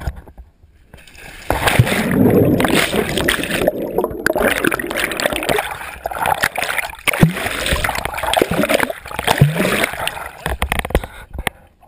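Lake water splashing and gurgling right at the microphone, which is dipping at the water surface beside an aluminum boat hull.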